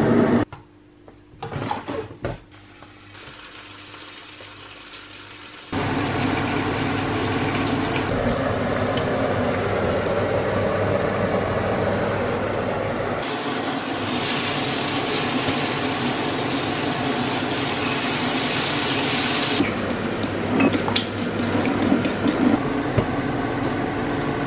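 Food frying in pans: a steady sizzling hiss from strips of bacon and then eggs scrambling in a non-stick frying pan. It starts about six seconds in, after a few quiet clinks, and turns brighter and more hissing for several seconds in the middle. Near the end a spatula knocks and stirs the eggs in the pan.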